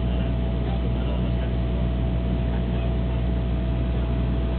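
Steady drone of a DHC-8-100's turboprop engines and propellers in flight, heard inside the cabin: a deep even hum with a thin steady tone above it.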